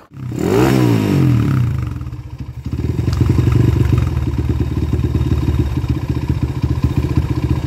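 Honda CB motorcycle's single-cylinder four-stroke engine revved up and back down once, then settling about three seconds in into a steady fast idle with a loud, even pulsing beat, as its carburettor is being set.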